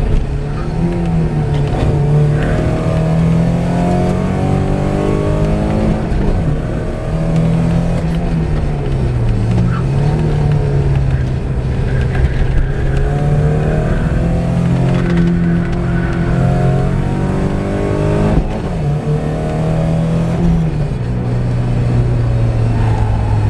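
1985 Porsche 944's 2.5-litre naturally aspirated inline-four engine driven hard around a race track, heard from inside the cabin, its pitch repeatedly climbing under acceleration and dropping away. The note falls sharply about three-quarters of the way through and runs lower near the end.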